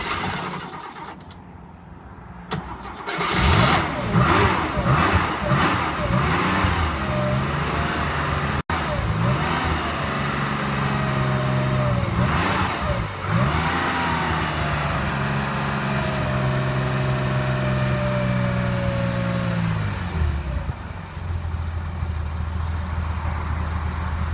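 1968 Porsche 911's air-cooled flat-six engine being blipped repeatedly, then revved up and held at higher revs for several seconds, dropping back to a steady idle about 20 seconds in.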